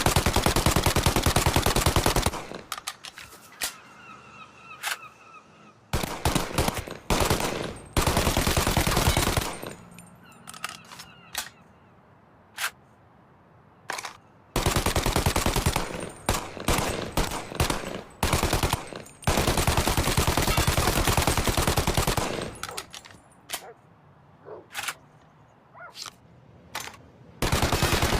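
Thompson submachine gun (Tommy gun) firing on full auto: about six long, rapid bursts of one to three and a half seconds each, with single shots and short bursts in the quieter gaps between them.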